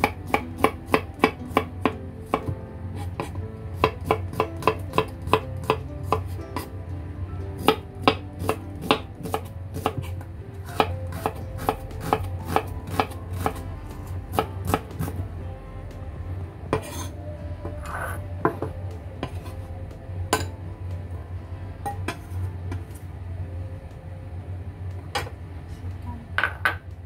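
Kitchen knife slicing garlic cloves and shallots on a bamboo cutting board: quick, even strikes of the blade on the board, about three a second, thinning out to scattered taps in the second half.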